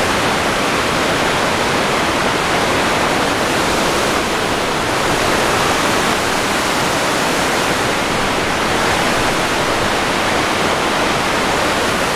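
Loud, steady rush of the Iguazu Falls, a huge volume of water pouring down: an even roar with no change, loud enough that nothing else can be heard.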